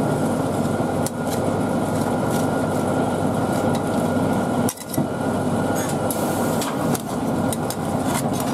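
Two metal spatulas rapidly chopping, tapping and scraping a tomato and cream mixture on a cold aluminum pan, a dense run of clicks and scrapes with a short break almost five seconds in, over a steady low hum.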